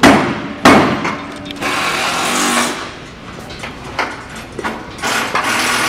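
Construction work in a large hall: two sharp knocks, then a handheld power tool whirring in two bursts of about a second each, with smaller clicks and clatter between them.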